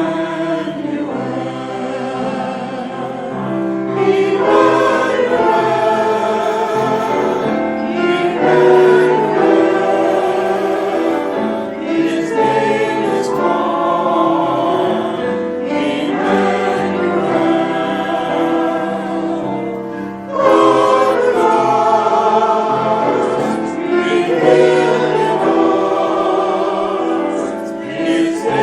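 Choir singing a hymn with accompaniment, in phrases that swell and change chords every few seconds.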